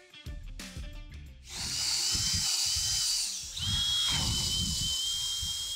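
Handheld power drill boring a hole into a workbench top through a bolt hole in a fly press's cast base, running at a steady high whine. It runs twice: first from about a second and a half in, then again after a brief pause.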